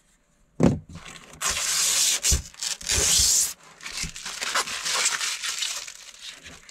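Clear plastic protective film crinkling and rustling as it is pulled off a large digital clock's display, loudest in the first half, with a knock of the clock being handled about half a second in and light taps through the rest.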